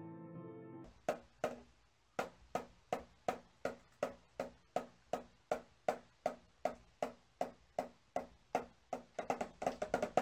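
A small toy drum tapped with a stick in a steady beat, about two and a half taps a second, quickening to about five a second near the end. A snatch of music cuts off just before the taps begin.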